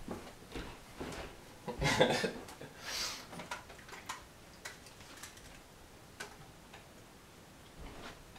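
Faint, regular ticking, roughly twice a second, under the rustle and shuffle of a person moving close to the microphone. The rustle is loudest about two seconds in, with a short hiss about a second later.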